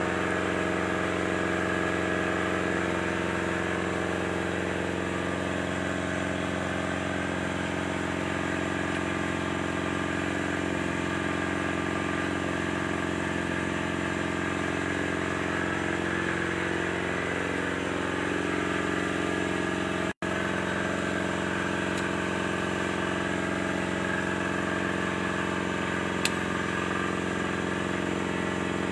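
Excavator's diesel engine running steadily, its note wavering slightly a little past the middle. The sound cuts out for an instant about two-thirds of the way through, and there is a small click near the end.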